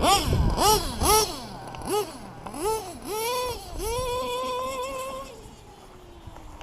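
LRP .32 nitro engine with a Novarossi race carburettor revving up and down in about six quick bursts, then held at high revs for over a second before falling away into the distance. It is screaming, with the high-speed needle set a bit too lean, as the owner says.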